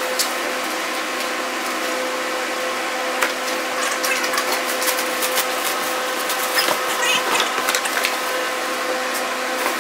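Plastic wrapping crinkling and rustling as wrapped metal frame parts are handled and lifted out of a large cardboard box, over a steady hum.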